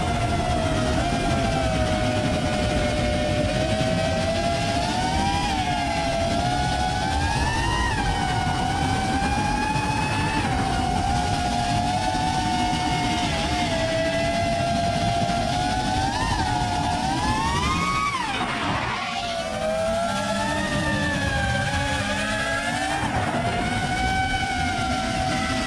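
Electric motors of an FPV quadcopter whining over a rush of propeller wash and wind, heard from the camera riding on the drone; the pitch rises and falls with the throttle. About 18 seconds in the whine climbs sharply, drops away as the throttle is cut, then picks back up.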